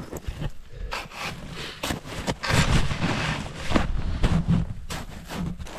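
Footsteps crunching and scraping through old, icy snow, uneven and irregular as the hiker steps carefully over slippery ground.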